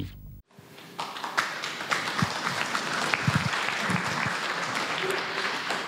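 Seated audience applauding, a steady patter of many hands that starts about a second in after a brief silence.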